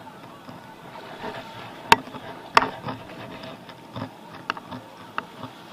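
A few sharp knocks or clicks, two loud ones about two and two and a half seconds in and fainter ones later, over a soft steady hiss of shallow water.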